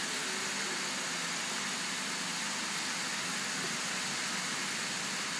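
Steady, even background hiss with no distinct events; the hand-stitching of the wing is not heard.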